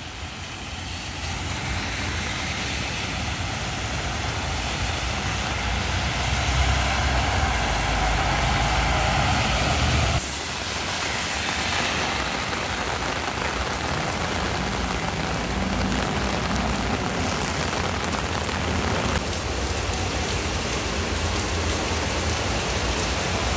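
Heavy rain pouring onto a wet road while buses and cars drive through it, a steady hiss of rain and tyres on standing water over a low traffic rumble. The sound shifts abruptly about ten seconds in.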